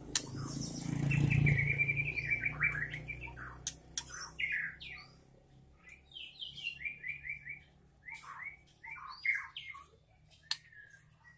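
A young white-rumped shama (murai batu trotol) singing in its cage: a run of varied chirps, short whistled notes and quick repeated-note trills, with sharp clicks between them. A low rumble underlies the first two seconds.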